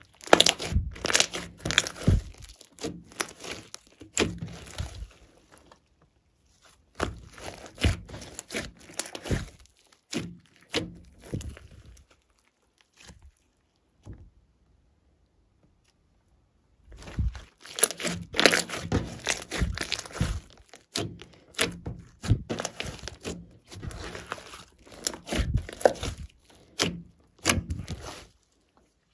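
Hands squishing, pressing and stretching glossy slime mixed with clay and glitter, giving runs of wet, clicky crackles as air pockets in the slime give way. The handling stops for a few seconds in the middle, then starts again, busier than before.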